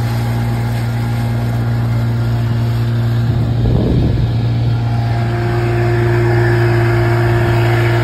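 Outboard motor running steadily at speed with a boat underway, a constant low hum with overtones. A brief rush of noise comes about four seconds in.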